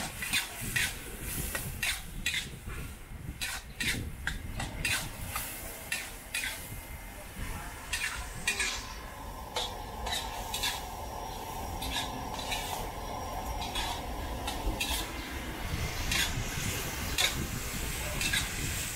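Metal wok ladle scraping and clinking against an aluminium wok in repeated, irregular strokes while stir-frying, with the food sizzling in the pan.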